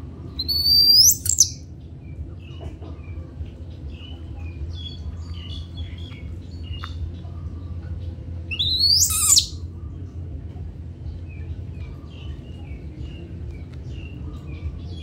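Birds chirping, with many short faint chirps and two loud, shrill, sharply rising calls about a second long, one just after the start and one about eight and a half seconds in, over a steady low hum.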